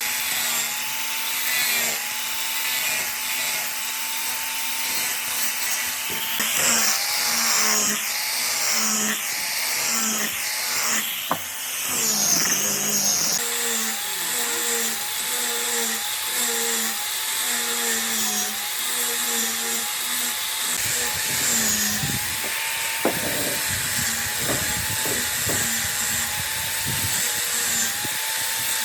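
Electric power tool running on wood, its motor whine wavering in a steady rhythm, with louder cutting or grinding noise for several seconds near the middle.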